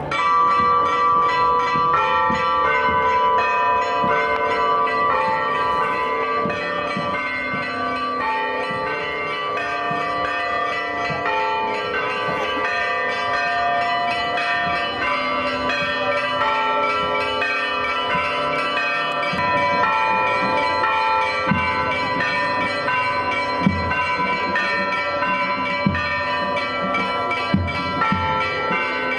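Church bells ringing without pause, a peal of many overlapping tones that keep changing.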